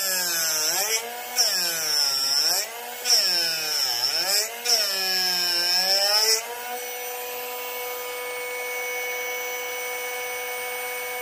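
Drill Doctor bit sharpener's motor running while a drill bit is ground in its sharpening port as the chuck is twisted back and forth: four grinding passes, the motor's pitch dipping and rising with each. About six and a half seconds in the grinding stops and the motor runs on steadily, unloaded.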